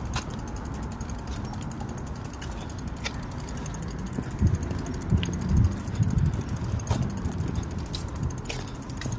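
Bicycle rolling along a concrete sidewalk: a steady low rumble of the tyres, with scattered light clicks and rattles from the bike and a few heavier bumps about four to six seconds in.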